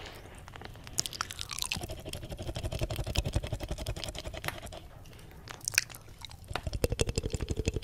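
Wet mouth sounds pressed close to a 3Dio binaural microphone's silicone ear: tongue flutters, fast runs of clicks with a low held hum beneath them, in two spells, one around two to five seconds in and another near the end.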